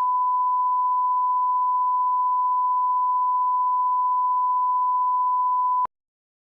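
Steady 1 kHz test tone, the line-up tone that goes with colour bars: a single unbroken beep at one pitch and an even level that cuts off abruptly near the end.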